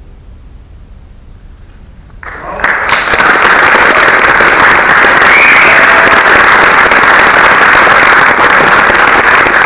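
Quiet for about two seconds, then audience applause breaks out, swells within a second and holds steady and loud.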